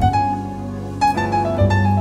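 Background piano music: a melody of single notes over low bass notes.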